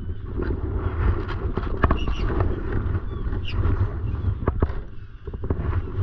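Wind rumbling on the camera microphone, with sharp knocks and clunks, a few in quick pairs, as the kayak and paddle shift against the plastic floating launch dock.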